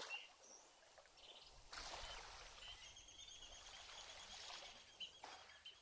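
Faint outdoor nature sound: a soft hiss of running water that swells and fades, with high steady chirping over the second half.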